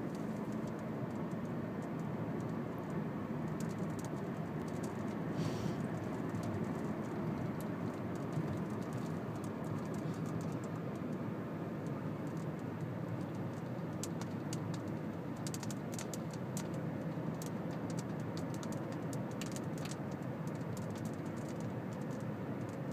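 Steady road and engine noise inside a moving car's cabin. A run of light clicks and rattles comes in over the second half.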